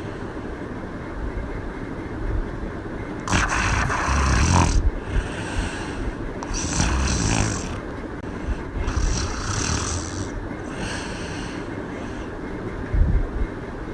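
A woman snoring with her mouth open: about four snores a couple of seconds apart, the first the loudest, over a steady low background rumble.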